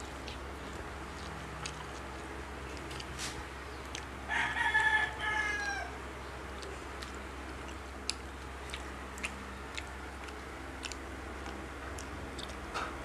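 A rooster crowing once, about four seconds in: a call of several parts ending on a long falling note. Around it, scattered small clicks and smacks of eating, over a steady low hum.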